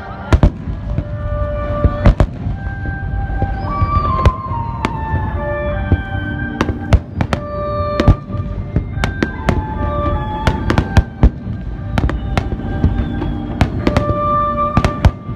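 Fireworks display: many sharp bangs of shells bursting at irregular intervals, sometimes several in quick succession, over music with held notes.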